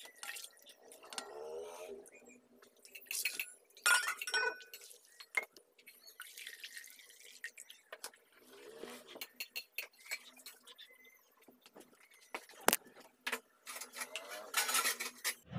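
Steel and aluminium pots and bowls clinking and scraping on a hard floor, with several sharp clinks, and water sloshing in a steel bowl as chopped cauliflower is rinsed by hand.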